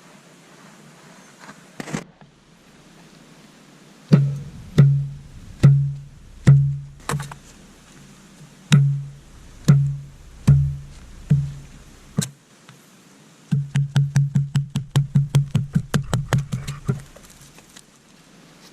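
A series of hard knocks, each with a short low ring: about a dozen evenly spaced strikes, then a fast run of quicker strikes near the end.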